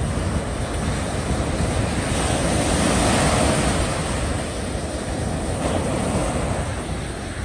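Small waves washing up onto a sandy beach, with the surf swelling loudest about three seconds in.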